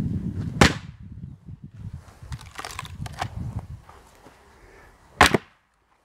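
Axe chopping firewood on a wooden chopping block: two sharp chops about four and a half seconds apart, with lighter knocks and clatter of wood in between.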